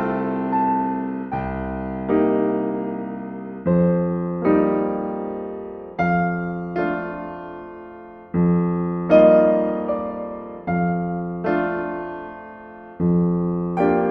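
Slow, soft solo piano music: chords struck roughly every one to two seconds, each ringing on and fading before the next.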